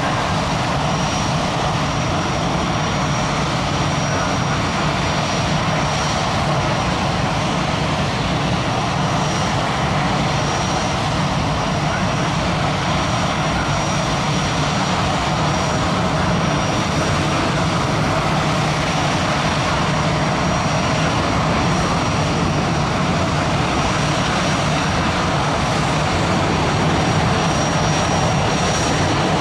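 Consolidated B-24 Liberator (LB-30) on landing approach, its four Pratt & Whitney R-1830 Twin Wasp radial engines and propellers droning steadily, growing slightly louder near the end as it draws closer.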